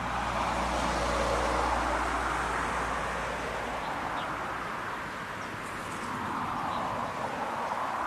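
Road traffic passing: a rushing noise that swells and fades, once in the first half and again near the end, with a low rumble that stops about halfway through. A few faint, short high chirps sound in the second half.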